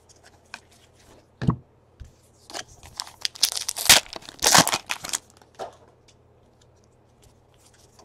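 A trading-card pack wrapper being torn open and crinkled, a dense rustle from about two and a half to five seconds in, after a single short tap about a second and a half in.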